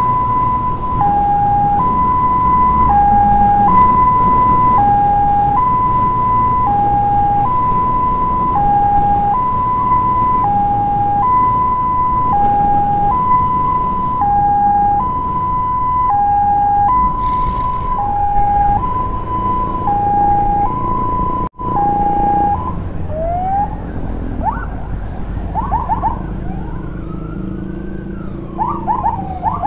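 Emergency siren sounding a two-tone hi-lo pattern, switching between a higher and a lower pitch about once a second, over the low rumble of a moving motorcycle. About two-thirds of the way through it cuts out for a moment, then changes to quick rising and falling sweeps and short chirps.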